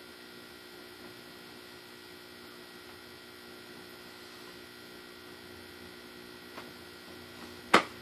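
Steady electrical mains hum with faint fixed tones, a light click about six and a half seconds in, and one loud sharp click near the end.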